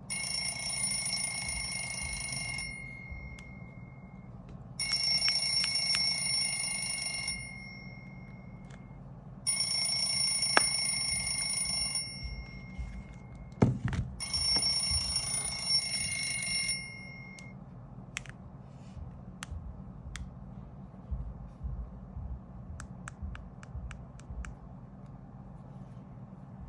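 A smartphone alarm tone ringing in four bursts of about two and a half seconds each, a couple of seconds apart, then stopping about 17 s in. A single knock comes just before the last burst, and light clicks of the phones being handled follow.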